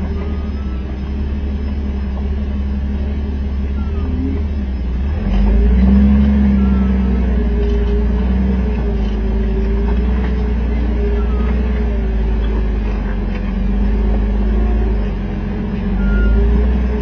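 Off-road Jeep's engine running at crawling speed with a deep steady rumble that gets louder about five seconds in, its pitch wavering slightly.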